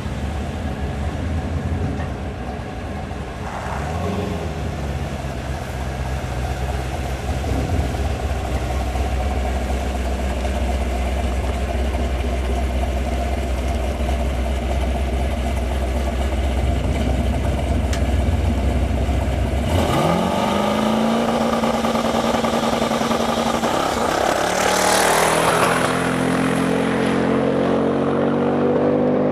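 Twin-turbo 2005 Pontiac GTO V8 idling with a low rumble and a brief rev while staging, then launching about twenty seconds in, its pitch climbing fast as the car pulls away. A loud rushing burst comes about five seconds after the launch, and then the engine pitch climbs again. The car was short-shifted into second right off the launch.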